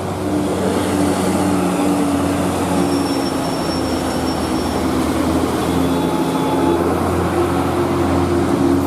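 Heavy truck's diesel engine running steadily under load on a steep climb, a loud drone whose pitch shifts slightly a few times.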